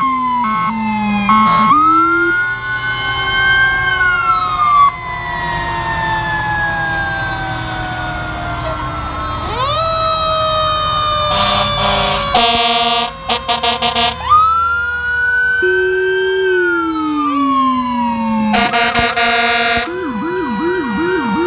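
Several fire-truck sirens sounding at once as the engines pass: wails that wind up quickly and then fall slowly over several seconds, twice, with horn blasts about halfway through and again near the end. A fast yelp begins near the end.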